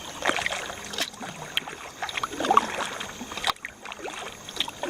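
Kayak paddle strokes: the blades dipping and splashing in river water in an irregular rhythm, with a couple of sharp knocks.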